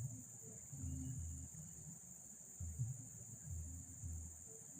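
Steady high-pitched drone of insects such as crickets, with a few low muffled rumbles underneath.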